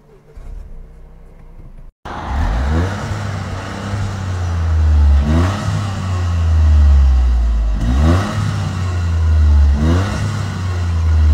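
Toyota GR Yaris's 1.6-litre turbocharged three-cylinder engine, just started, running and revved in quick throttle blips about four times, heard at the exhaust.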